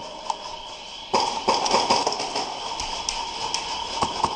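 Irregular sharp clicks and taps, typical of airsoft guns firing and BBs striking around the arena, sparse at first and busier from about a second in.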